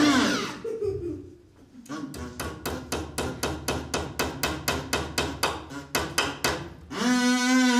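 Hammer knocking on wood in a quick, even run of blows, roughly five a second, lasting about five seconds. A voice holds a long note at the very start and again near the end.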